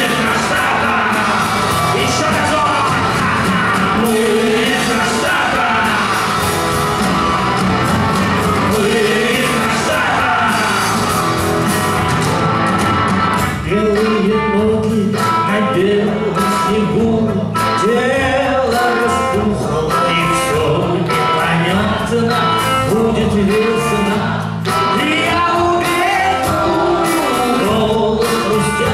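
Live rock band playing a song with loud, shouted singing. The sung lines come through more clearly from about halfway through.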